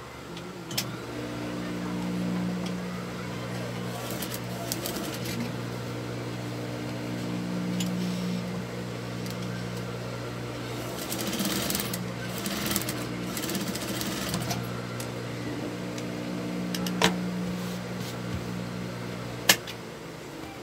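Industrial sewing machine running, stitching through padded layers of fabric. Its motor hum starts about a second in, swells and eases as the speed changes, and stops near the end. A few sharp clicks come through, the loudest just before it stops.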